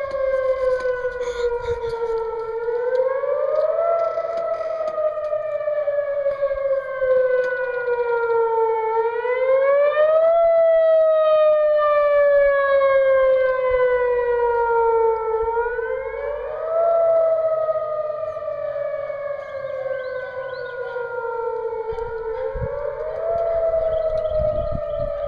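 Outdoor civil-defense tornado siren sounding for a test, wailing steadily. Its pitch climbs quickly over about a second and a half, then sinks slowly over about five seconds, repeating roughly every six and a half seconds.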